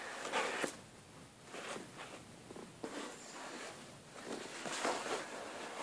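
Faint scattered rustling and light knocks from a collapsible fabric storage bin being handled.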